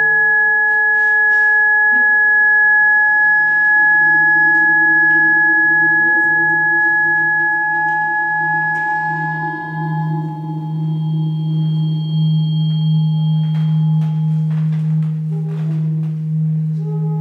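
Acoustic feedback from a four-channel no-input setup, condenser microphones aimed at active loudspeakers, ringing as several steady pure tones at once. A high tone fades out about two-thirds of the way through while a low hum grows stronger, and shorter tones come and go near the end, with a few faint clicks.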